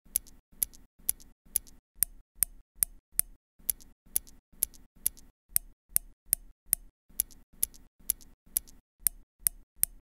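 Clicky mechanical key switches pressed one at a time, giving sharp, high-pitched clicks about two a second. The clicks come in sets of about four, and every other set carries a low thud as well.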